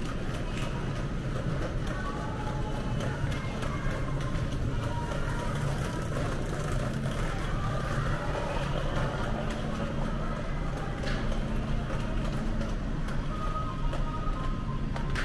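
Supermarket ambience: a steady low hum from open refrigerated display cases and ventilation, with scattered light clicks.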